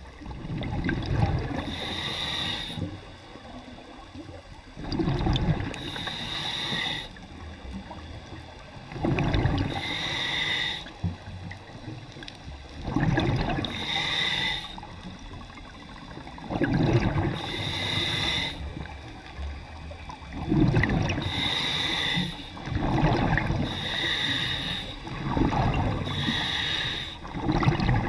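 Underwater scuba breathing through a regulator: about every four seconds a low bubbling rush of exhaled air, then a higher, hissing draw on the demand valve, about seven breaths in a row.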